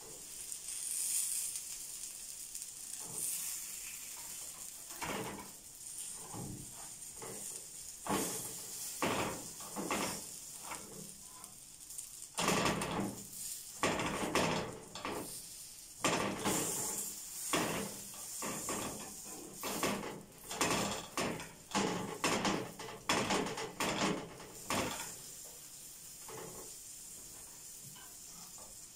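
Meat-stuffed hawawshi bread sizzling in oil in a nonstick frying pan, with a metal slotted spatula scraping and tapping against the pan again and again through the middle stretch. Near the end only the steady sizzle remains.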